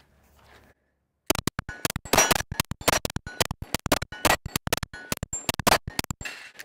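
Canik TTI Combat 9mm pistol firing a rapid string of 115-grain PMC Bronze rounds at a steel plate rack, with the plates ringing as they are hit. The string starts about a second in and stops just before the end.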